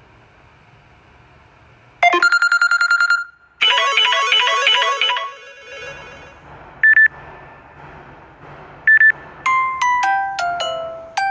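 Samsung Galaxy S7 edge phone speaker playing short previews of different ringtones one after another. About two seconds in, a fast tone of quickly repeated notes starts and cuts off, then a rhythmic chiming tune, two short single beeps, and near the end a run of falling notes.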